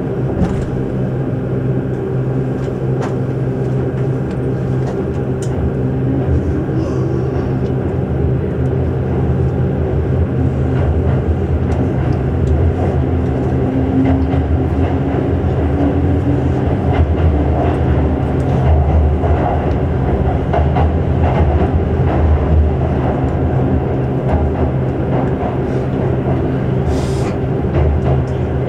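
Keihan 8000 series electric train heard from inside the passenger car, running through a tunnel: a steady low rumble and hum of wheels and running gear, with scattered faint clicks.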